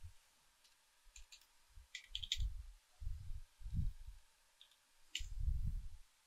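Computer keyboard keys clicking in a few short runs of taps as a command is typed and corrected, with low muffled bumps between the runs.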